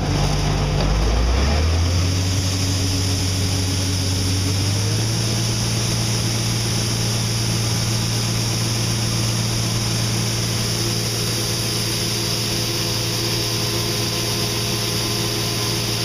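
A Case IH combine's diesel engine speeds up over the first five seconds or so, then runs at a steady high speed under a constant rushing hiss.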